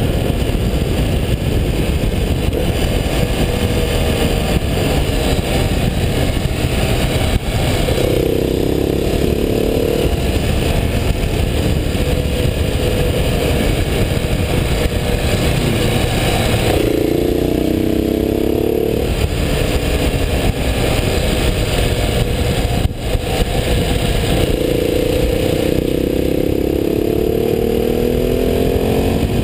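KTM 690 SMC's single-cylinder engine riding at speed over a steady rush of wind and road noise. The engine note swings up and down in pitch as the bike works through the bends, clearest about eight seconds in, again around seventeen seconds, and over the last few seconds.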